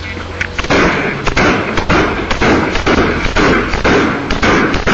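Rapid run of loud thuds and scuffling noise, about two a second, picked up by a police officer's body camera as the camera is knocked about and covered in a close struggle.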